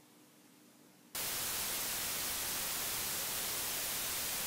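Near silence, then about a second in a steady hiss of TV-style white-noise static starts suddenly and holds.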